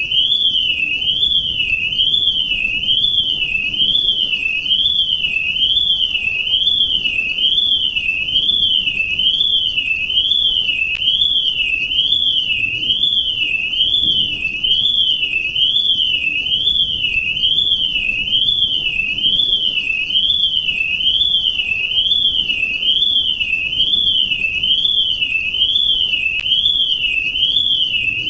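Electronic alarm tone: a high, shrill pitch sweeping up and down evenly, a little more than once a second, without a break.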